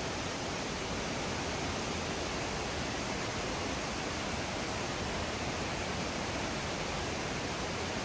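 Steady, even rush of a tall waterfall's falling water.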